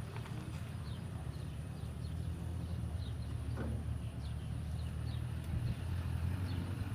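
A steady low drone, like a running engine, with short high chirps repeating over it, as of small birds.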